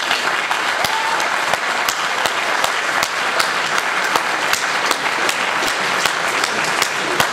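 Audience applauding, breaking out suddenly and keeping up a steady, dense clapping with single sharp claps standing out.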